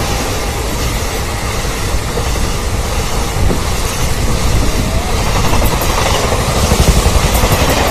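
Indian Railways sleeper-class passenger coaches passing close by: a loud, steady rush of air with the wheels and bogies clattering over the track.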